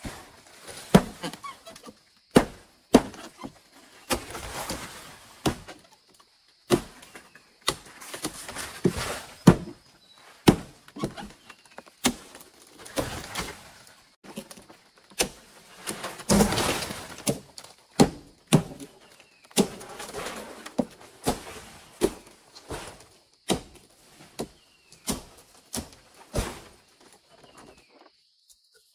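Irregular sharp knocks and thuds, roughly one or two a second, with short stretches of scraping and rustling between them, the longest and loudest about halfway through: hand building work on a wood and bamboo structure.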